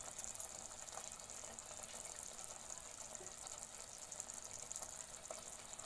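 Faint steady hiss with a few soft ticks.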